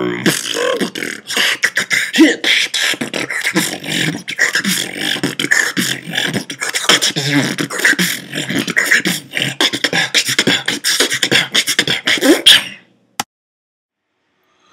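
Beatboxing: a fast, dense run of vocal drum sounds and clicks mixed with short pitched vocal glides, stopping abruptly about twelve and a half seconds in. A single sharp click follows in the silence.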